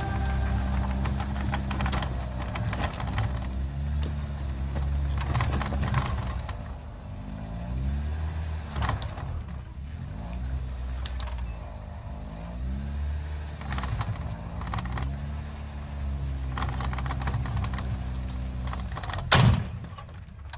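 An engine running, its speed repeatedly rising and falling, with a few sharp knocks, the loudest near the end.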